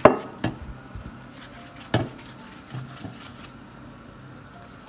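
Kitchen handling knocks as phyllo pastry sheets are laid in a baking tray and brushed with oil: a sharp knock at the start, a second about half a second later and a third about two seconds in, then only low background.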